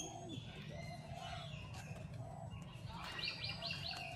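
High-pitched animal calls: scattered short chirps and squeaks, with a quick run of about five short high notes a little past three seconds in, over a steady low rumble.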